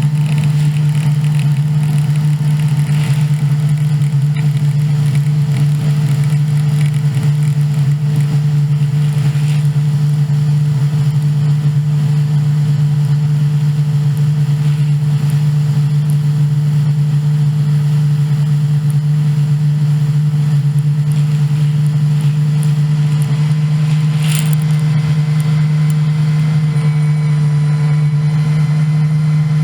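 Combine harvester engine running at a steady, unchanging low drone.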